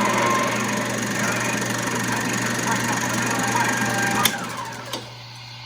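1940s RCA 16mm movie projector running with its film mechanism clattering, then switched off with a click about four seconds in; the clatter dies away, a second click follows, and a low steady hum stays on.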